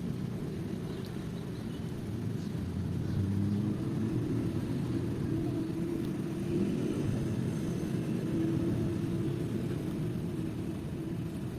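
Toyota Vitz engine idling with a steady low rumble. It is running on one dead cylinder, a cylinder 3 misfire (code P0303).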